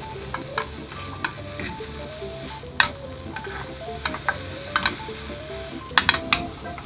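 Egg sizzling in a square tamagoyaki pan while a slotted spatula scrapes and taps the pan, folding and rolling the omelet. The taps come every second or so, the sharpest about three seconds in and again near the end.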